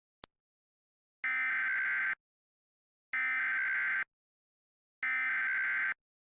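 Three identical bursts of Emergency Alert System SAME header data, the buzzy digital data tones that open an alert. Each burst lasts just under a second, with about a second of silence between them. A faint click comes just before the first burst.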